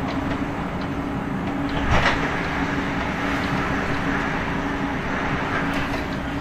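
Class 465 Networker electric multiple unit running at a steady pace, heard from inside the carriage: continuous wheel and track rumble under a steady low hum. About two seconds in there is a brief, loud clatter, like the wheels crossing a rail joint or points.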